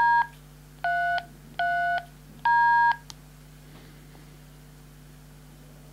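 Four DTMF tone pairs keyed on a Kenwood TH-D74 handheld's keypad, spelling D, 3, 3, D. This is the command to link a DV4mini D-Star hotspot to reflector DCS033D. The beeps are separated by short gaps, the last held longest, and a short click follows just after.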